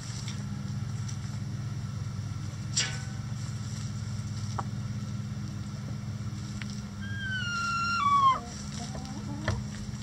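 A chicken gives one drawn-out call about seven seconds in, holding a high pitch for about a second and then dropping steeply. It sounds over a steady low hum, with a short sharp click near the start.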